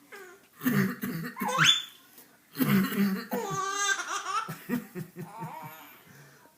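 A young girl laughing in bursts at her father's coughing, with a high rising squeal about a second and a half in and a run of short, quick laugh pulses in the second half.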